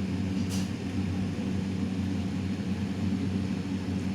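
A steady low mechanical hum from a running motor, with one faint tick about half a second in.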